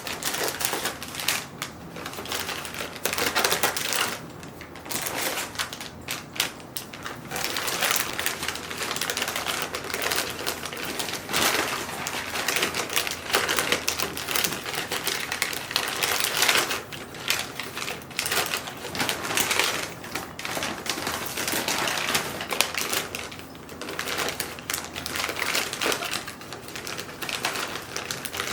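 Rapid, irregular clicking and clattering of small hard objects being handled, going on throughout with louder clusters now and then.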